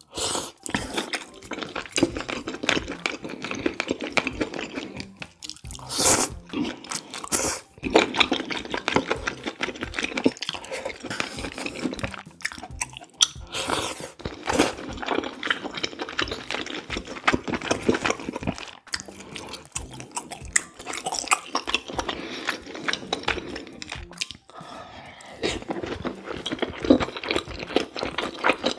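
Close-up eating sounds: slurping kalguksu noodles in spicy broth and chewing them wetly, a continuous run of smacks and sucks with a few louder slurps.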